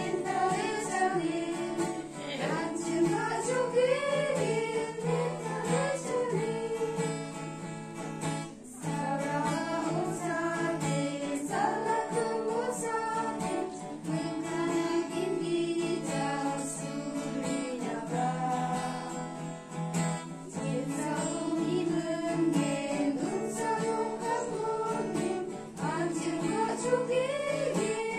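Small women's group singing a hymn together, with guitar accompaniment.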